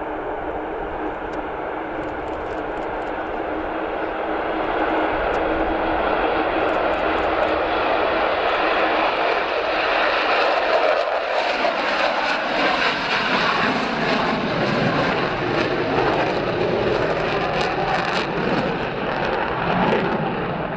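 Avro Vulcan jet bomber flying past, a steady jet roar with a held hum in the first half. It grows louder a few seconds in and becomes fuller and deeper past the middle as the aircraft comes closer.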